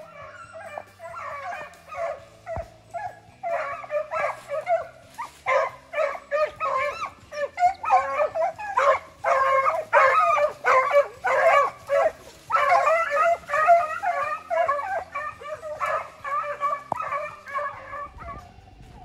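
A pack of beagles baying and yelping in quick overlapping cries, hounds in full cry on a snowshoe hare's trail. The chorus thickens a few seconds in and thins out near the end.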